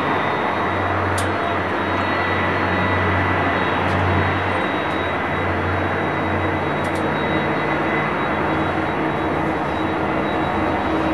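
Jet airliner engines running steadily: a continuous rush of noise with a low hum and a thin high whine, with a few faint clicks.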